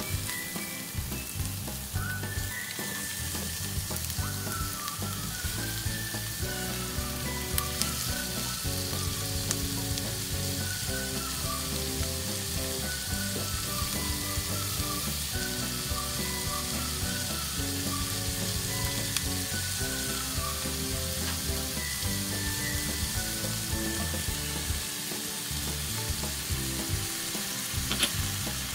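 Raw fish pieces sizzling as they fry in hot oil over sautéed onion, garlic and ginger in a frying pan, a steady hiss throughout. A light melody of background music plays underneath.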